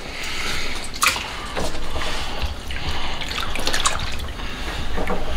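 Raw pork intestines being lowered by hand into a wok of water, with water splashing and dripping and a few brief wet slaps.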